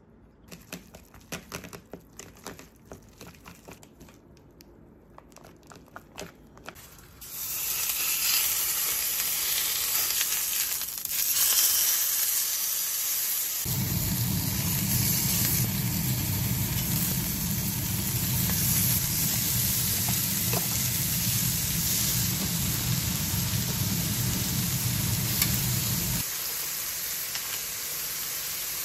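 Soft irregular clicks of a spoon mixing natto ssamjang, then pork neck sizzling in a hot frying pan, a steady hiss that comes in about seven seconds in and holds. About halfway through, a low steady hum joins for around twelve seconds and then cuts off suddenly.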